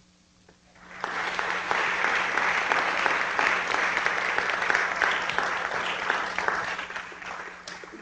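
Audience applauding, many hands clapping. It starts about a second in, holds steady, and fades away near the end.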